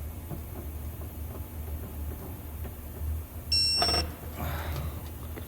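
Snap-on digital torque wrench giving one high, steady beep of about half a second, its alert that the set torque of 200 ft-lb has been reached on the nut. A short metallic clatter follows as the pull ends.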